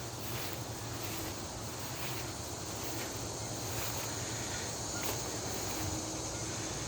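Steady outdoor background noise with a faint, continuous high-pitched insect drone and a few faint clicks.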